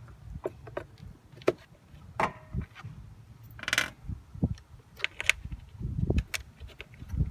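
Scattered light clicks, knocks and a brief rustle of a replacement evap canister purge valve and its screws being handled and fitted into place under the hood, over a low rumble of wind on the microphone.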